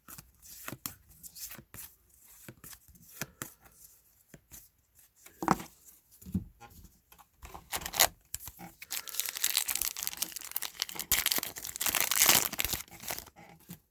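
Trading cards being handled, with rapid small clicks and rustles, then a card pack's wrapper being torn open and crinkled, loudest from about nine to thirteen seconds in.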